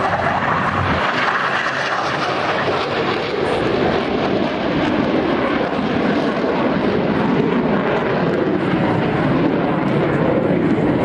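Steady, loud jet noise from the twin engines of a Blue Angels F/A-18 Hornet as it flies past and pulls up into a vertical climb.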